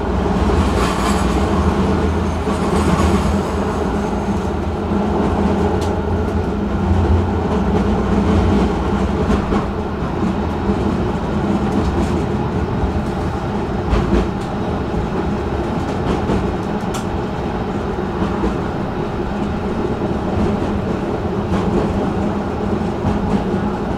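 Stockholm tram running along the line, heard from inside the car: a steady rumble of wheels on rail over a low motor hum. There is a brief hiss in the first few seconds and a few sharp clicks from the wheels on the track.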